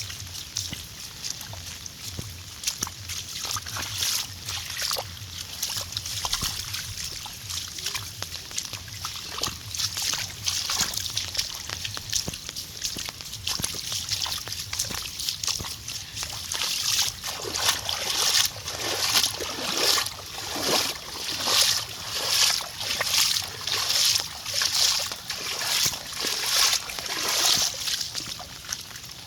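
Water sloshing and splashing, becoming a regular splash a little more than once a second in the second half.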